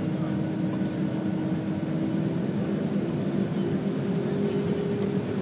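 Boeing 757-200 engines running at taxi power, heard inside the cabin as a steady drone. A hum within it steps up slightly in pitch about three seconds in.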